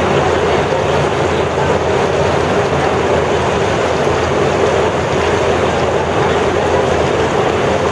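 Steady, unbroken rushing noise, strongest in the middle range, with a low hum beneath and no distinct events.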